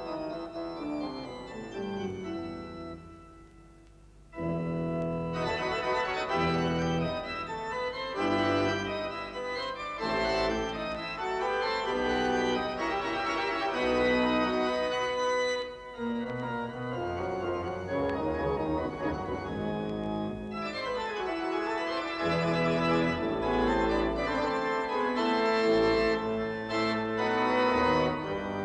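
Organ music playing held chords and melody. It fades almost away about three seconds in and comes back louder just after four seconds.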